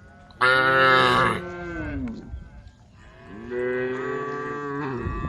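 Cows mooing: two long moos, the first and louder one starting about half a second in and dropping in pitch as it ends, the second starting a little after three seconds.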